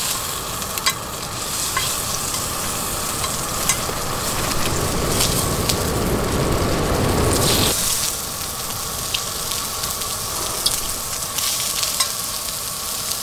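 Octopus legs sizzling in oil in a cast-iron skillet over a gas stove, with scattered sharp pops and clicks of tongs and spattering oil. A louder low rush swells for about three seconds in the middle.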